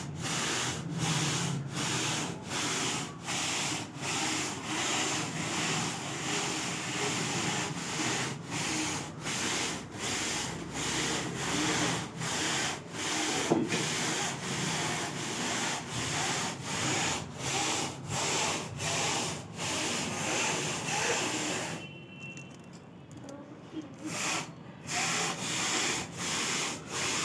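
Knitting machine running: a repeated rubbing, sliding noise broken by short gaps about one and a half times a second, easing off for a couple of seconds near the end before starting again.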